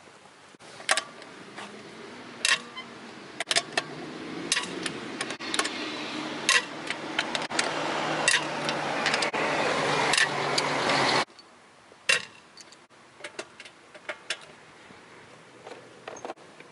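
Sharp metallic clicks and knocks of a wrench loosening the front wheel bolts while the tyres still rest on the ground. Underneath is a steady noise that grows louder and then cuts off suddenly about eleven seconds in.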